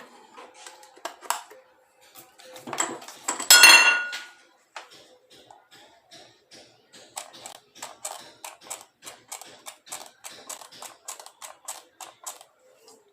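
Small metal parts and tools clicking and clattering on a work surface. A loud ringing metal clang comes about three and a half seconds in, then a run of light clicks, about two to three a second.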